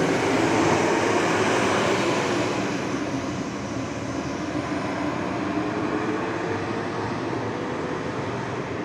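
Diesel intercity coach bus pulling away, its engine and loud exhaust running strong and slowly fading as it drives off, with faint engine tones rising and falling.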